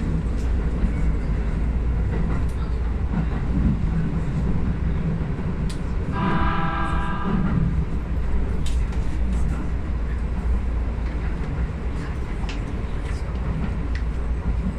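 Running noise of a Keisei 3050-series electric train heard from inside the front car as it rolls steadily along. A train horn sounds once, about six seconds in, for about a second and a half.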